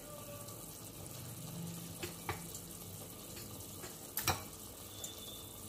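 Tomato purée simmering in a pressure cooker pan, a steady soft bubbling sizzle, with a few sharp clicks, the loudest a little past four seconds in.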